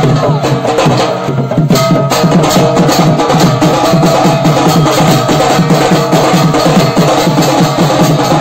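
Folk music with fast, dense drumming and a few steady held notes sounding above it. It thins briefly about a second and a half in.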